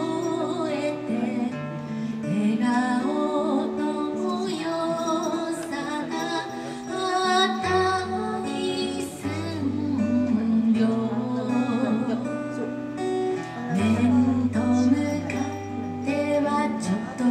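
A woman singing to a strummed acoustic guitar, with held low bass notes underneath that change every second or two.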